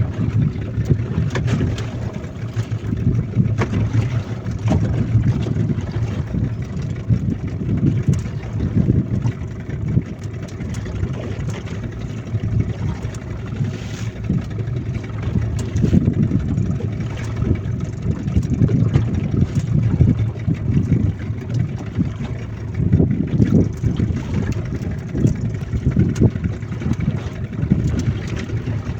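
Small boat's motor running steadily underway, its low hum swelling and fading, with wind on the microphone.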